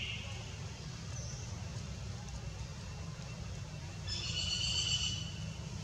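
Macaque giving a high-pitched squeal lasting about a second, some four seconds in, over a steady low rumble.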